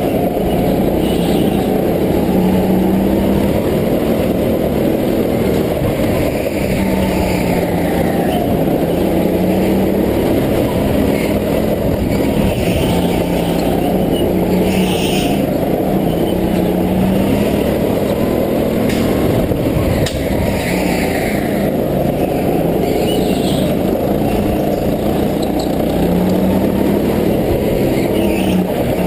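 Go-kart engine running under the driver, heard from on board, its pitch climbing and dropping every few seconds as the throttle opens and closes through the corners.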